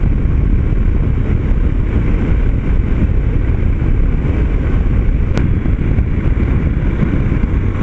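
Steady wind rush on the microphone mixed with the drone of a Yamaha Ténéré 250 single-cylinder motorcycle and its tyres cruising at about 90 km/h.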